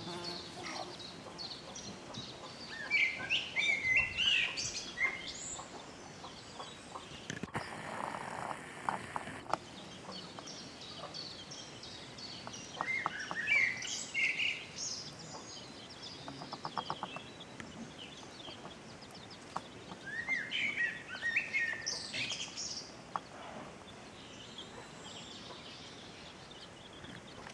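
Birds chirping outdoors in three bursts of quick high notes, several seconds apart, with a brief rapid low trill in the middle.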